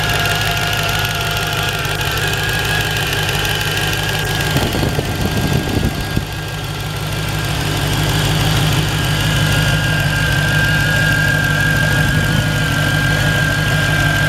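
Supercharged 6.2-litre HEMI V8 of a 2016 Hellcat idling steadily, with a steady high whine over the low engine note.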